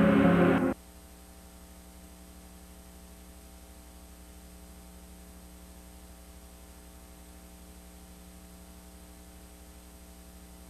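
Ambient end-credits music cuts off abruptly under a second in, leaving a steady electrical mains hum with faint hiss.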